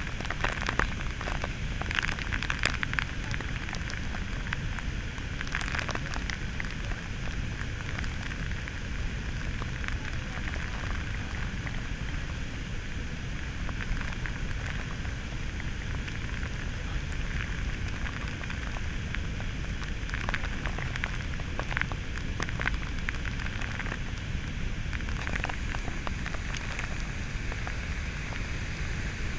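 Spray from Victoria Falls coming down like rain, its drops striking the camera in many irregular sharp clicks over a steady low rush of falling water.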